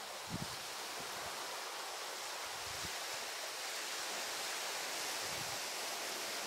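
Steady hiss of sea waves washing on a beach, with a few faint low thumps.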